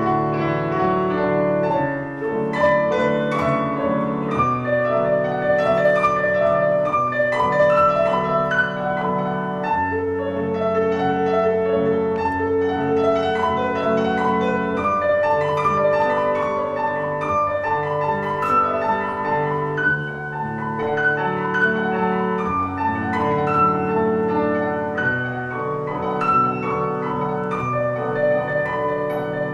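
Piano music playing without a break, a stream of quick notes over held lower chords.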